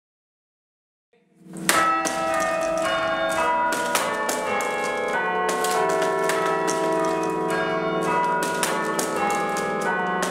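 Church bells struck by hammers worked from a hand-played lever chiming frame, starting about a second and a half in: a quick, continuous run of strikes with the bell tones ringing on and overlapping.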